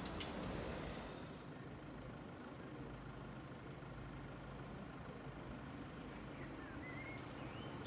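Faint low rumble of a road vehicle under steady outdoor background noise, with a thin steady high whine and a few faint chirps near the end.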